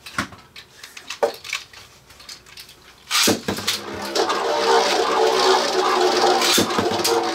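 A few small plastic clicks, then two Beyblade spinning tops, Meteo L-Drago and Lightning L-Drago, are launched with a sharp rip about three seconds in and land in the clear plastic stadium. They then spin with a steady whirring hum as they circle the stadium bowl.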